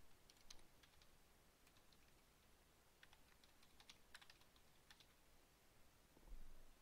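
Faint typing on a computer keyboard: several quick runs of light key clicks with short pauses between them, as a search term is entered.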